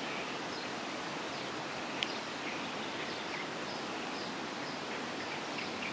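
Steady rushing murmur of a river flowing, with faint bird chirps scattered over it and a single sharp click about two seconds in.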